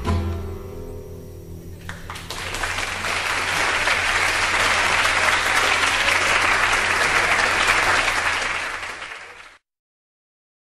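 The last chord of a recorded song dies away, then audience applause starts about two seconds in. The applause fades and is cut off abruptly near the end.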